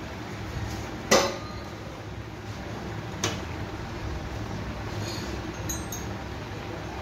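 Metal clanks from work at a bare motorcycle frame's steering head: one sharp, ringing clank about a second in and a fainter one about three seconds in, over a steady low hum.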